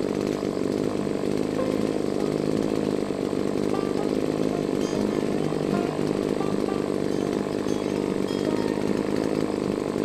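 Engine-powered brush cutter running steadily, its small engine holding an even speed.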